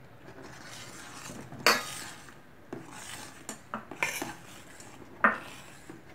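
Metal ladle stirring a milky payasam in a steel pot, scraping and clinking against the pot. A few sharp clinks stand out, the loudest about a second and a half in and again about five seconds in.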